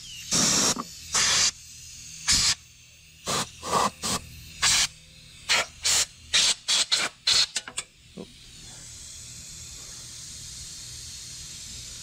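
Compressed air from a blow gun on an air-compressor hose, fired in about fifteen short hissing blasts to clear dirt and debris off a lawnmower engine, the blasts coming quicker after about five seconds. A fainter steady hiss follows for the last few seconds.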